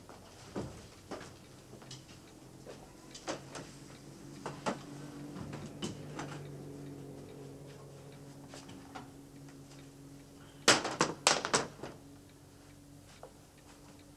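Scattered light knocks and clicks of objects and furniture being handled, with a quick run of sharp clicks and rattles, the loudest sounds, about eleven seconds in. A faint low steady hum runs through the middle.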